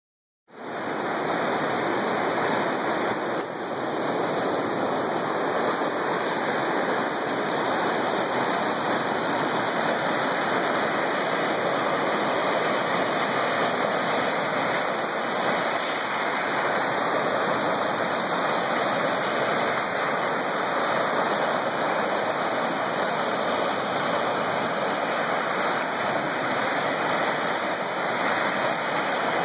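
Lake waves washing onto a pebble beach, a steady rushing noise with no distinct breaks.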